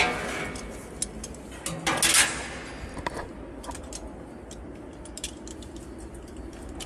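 Metal clicks and clanks of gear being handled on a steel catwalk: a sharp click at the start, a louder clatter about two seconds in, then scattered light ticks.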